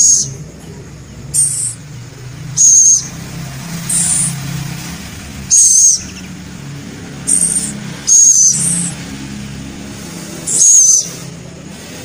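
A young scops owl (celepuk) calling: about eight short, high-pitched raspy calls, each under half a second, repeated every one to two seconds.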